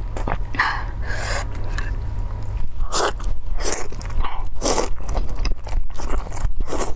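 Close-miked eating: chewing with a series of loud crunchy bites, each a short crackly burst, over a steady low hum.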